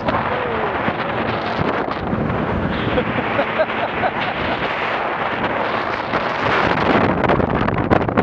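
Bayliner speedboat running at speed: wind buffeting the microphone over the steady rush of the hull and wake, with the engine running underneath.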